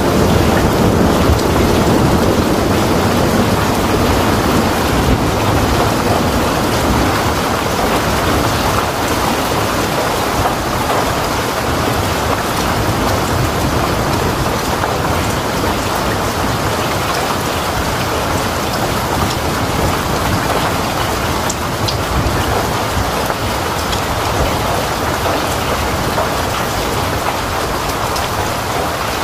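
Heavy rain pouring down steadily: a dense, unbroken rushing hiss.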